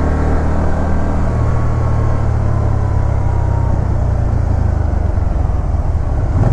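Can-Am Spyder RT's Rotax V-twin engine running steadily while the three-wheeler cruises at low road speed, with wind noise over it.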